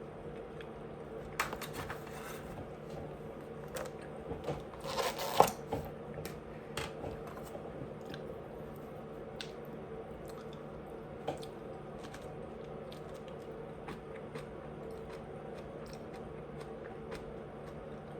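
A person eating close to the microphone: chewing and small mouth clicks, with a louder noisy stretch about five seconds in, over a steady background hum.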